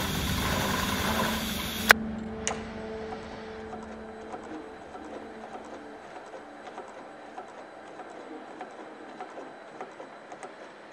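GLOBAL 63900CH single-needle, cylinder-bed chainstitch bottom hemmer sewing a denim jeans hem. It runs loudest for about two seconds, ending with a sharp click, then runs on more quietly with rapid light ticking.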